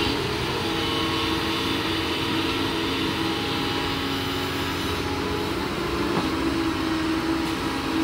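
Doosan DX225LCA crawler excavator's diesel engine running steadily under load as it swings its boom and works its bucket, a constant engine drone with a few held tones.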